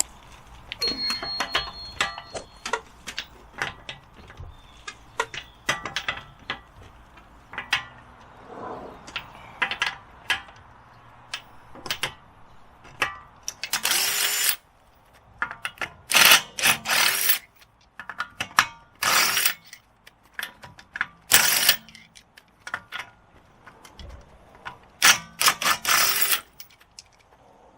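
Hand tools ratcheting and clanking in short bursts, with many sharp metal clicks, as a car's front wheel is being taken off.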